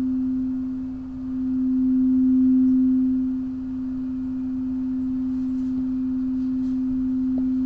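Crystal singing bowl sustaining one steady, nearly pure low tone. The tone swells a few seconds in, eases back, then holds even.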